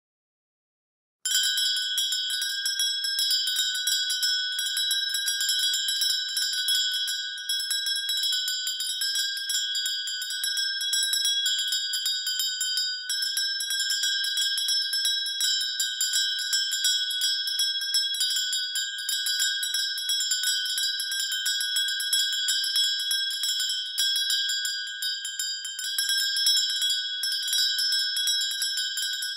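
A bell rung continuously with rapid, closely spaced strikes, starting about a second in. It holds the same set of high, ringing tones throughout, with small dips in loudness.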